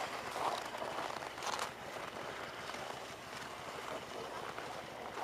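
Footsteps on packed snow, with a plastic sled being pulled along over it, in a loose irregular rhythm.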